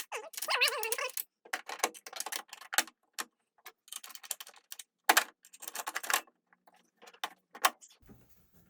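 Small metal hardware, such as bolts, washers and a bracket, clinking and rattling in irregular sharp clicks as it is handled and fitted.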